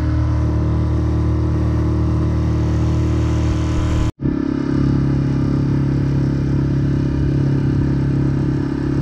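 Small outboard motor driving an inflatable dinghy at steady speed, a constant drone. It drops out for an instant about four seconds in, then carries on at a slightly different pitch.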